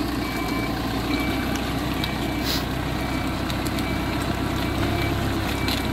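Hidromek backhoe loader's diesel engine running steadily while its reversing alarm beeps about once a second, as the machine backs up towing a stuck Humvee out of the mud.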